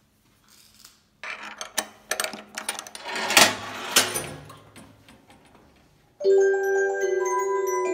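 A few seconds of clicking and rattling knocks, then about six seconds in a Polyphon disc music box starts playing, its steel comb ringing out bell-like notes.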